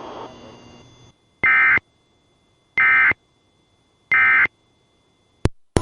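Emergency Alert System end-of-message SAME data bursts: three short, identical digital warbling chirps about a second and a half apart, marking the end of the alert. A sharp click follows near the end.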